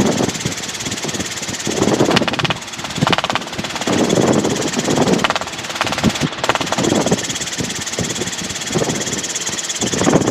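Robinson R22 helicopter engine and rotor noise inside the cabin, a steady dense drone that rises and falls unevenly.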